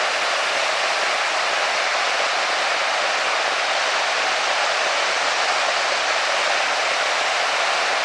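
Waterfall rushing: a steady, even hiss of falling water, strong in the middle and upper range with little bass.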